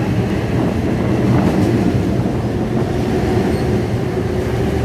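Long Island Rail Road M7 electric commuter train running past the platform: a loud, steady rumble of cars and wheels on the rails.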